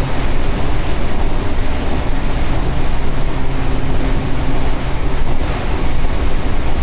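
Echizen Railway electric train running between stations, heard from inside the car: a loud, steady rumble of wheels on rail with a low motor hum.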